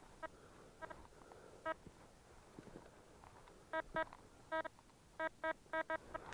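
Metal detector giving a series of short electronic beeps, about ten at irregular intervals, several in quick pairs, as its coil sweeps over a buried metal target.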